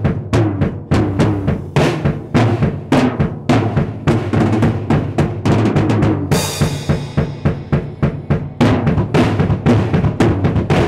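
Acoustic drum kit solo played with sticks: rapid snare and tom strokes over fast double-bass-pedal kick drum. About six seconds in a cymbal crash rings out for about two seconds while the strokes thin.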